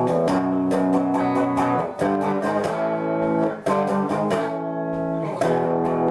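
Background music: guitar-led instrumental with a steady strummed rhythm.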